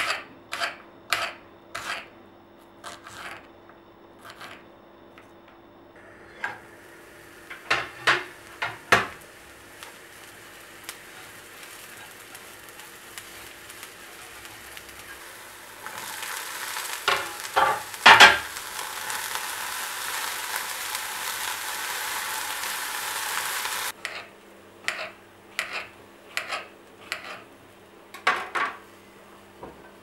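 A knife chopping a vegetable on a countertop in quick even strokes, about two a second. Mushrooms then fry in oil in a cast-iron pan with a soft hiss. About halfway through, diced green vegetable is tipped into the pan with a few knocks, and a loud steady sizzle follows for several seconds. It stops suddenly, and the knife chopping starts again near the end.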